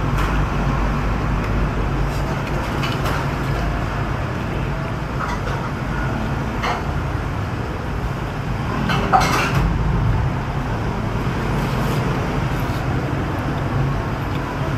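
Steady road traffic noise with a low hum, and a few light clinks of spoon and chopsticks against a bowl, the loudest a little past nine seconds in.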